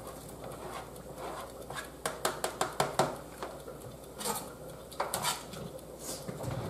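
Kitchen utensil clatter: a serving spoon scraping and tapping chopped vegetables off a cutting board into a pot, with a quick run of sharp clicks and knocks about two seconds in, then a few scattered knocks as the board and spoon are set down on the counter.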